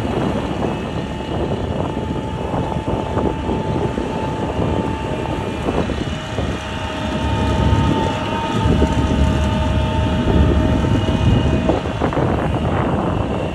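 Steady vehicle noise with a low rumble that grows louder after about seven seconds, and a faint steady whine.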